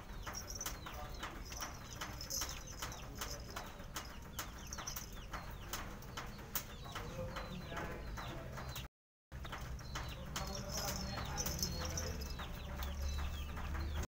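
Small bells on a kitten's collar jingling in quick, irregular clicks and tinkles as the kitten bats and jumps at a feather wand toy. The sound cuts out briefly about two-thirds of the way through.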